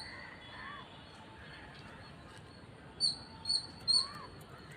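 Three short, high-pitched bird chirps about half a second apart, about three seconds in, over quiet outdoor background with a few fainter calls.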